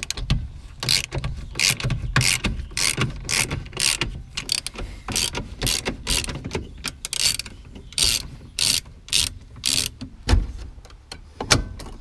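Socket ratchet wrench worked in quick back-and-forth strokes, its pawl clicking in short bursts about twice a second, loosening the steering column bolts under the dash. A dull thump near the end.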